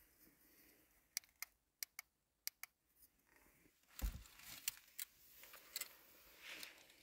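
Faint, sharp clicks and taps of small camping gear being handled, about half a dozen in the first three seconds, then a soft low bump about four seconds in followed by a few more clicks.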